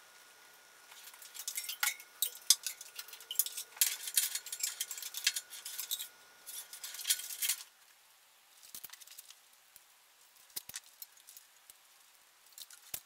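Loose automotive wiring-harness wires and their connectors rustling and clicking as a bundle is handled and sorted: a dense patter of light clicks and rattles for several seconds, then only a few scattered clicks.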